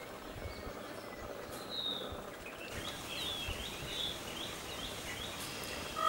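Songbird calls over quiet outdoor background noise: a single short high whistled note about two seconds in, then a quick run of about half a dozen short chirps around three to four seconds in.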